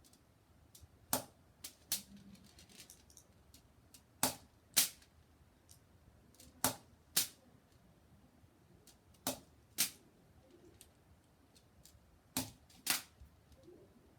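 Sharp clicks from handling a Crosman SNR 357 CO2 revolver while loading it. They come in five pairs, half a second apart within each pair, repeating about every two and a half seconds.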